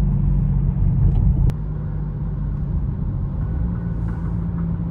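Inside a moving car: steady low rumble of engine and road noise, with a step down in level about a second and a half in.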